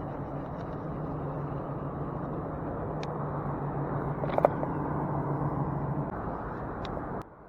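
Steady hum of road traffic from a nearby road, with a single sharp click about four seconds in. The sound drops off suddenly just before the end.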